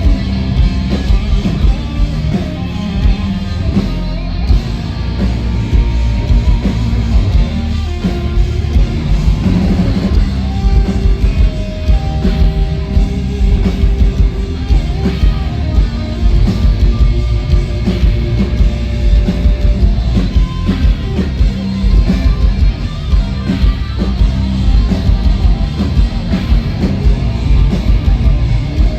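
Heavy metal band playing live through a loud festival PA: distorted guitars, bass and drums, with some held melodic notes in the middle stretch.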